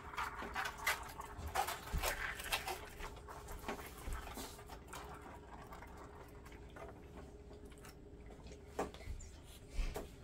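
Plastic squeeze bottle of fabric dye squeezed over wet fabric, sputtering in a string of short puffs of air and liquid during the first few seconds, then a few light clicks near the end.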